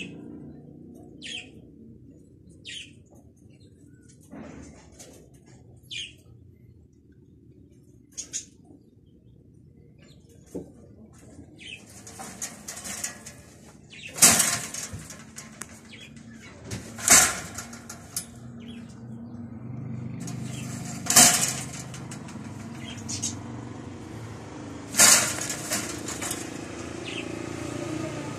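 Birds chirping in short high calls every second or two. From about halfway, rustling and several loud knocks and rattles against a wire-mesh cage.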